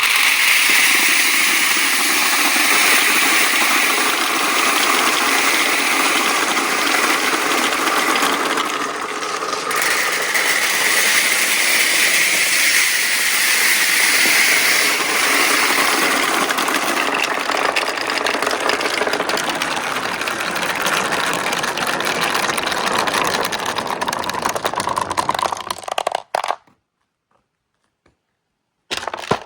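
Many marbles rolling and clattering together down a marble run track in a dense, steady rattle. The rattle stops abruptly near the end, followed by a few faint clicks.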